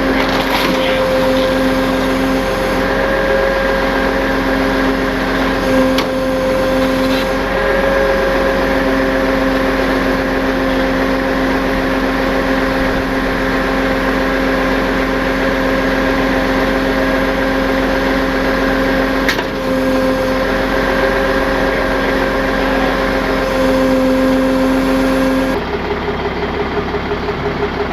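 Tow truck engine running at a constant speed, a steady drone with an unchanging pitch, while it powers the winch; the sound changes abruptly near the end.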